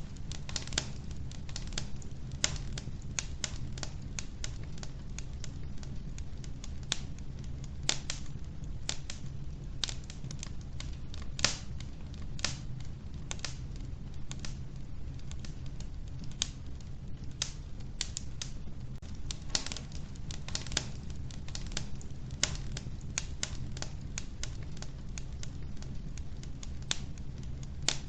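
Logs burning in a wood-burning stove, crackling with irregular sharp pops and snaps over a steady low rumble.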